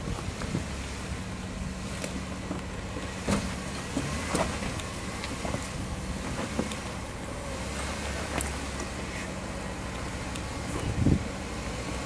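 Jeep Wrangler engine running at low revs as it crawls slowly over loose rock, with scattered crunches and knocks of stones under the tyres and a louder low knock about eleven seconds in.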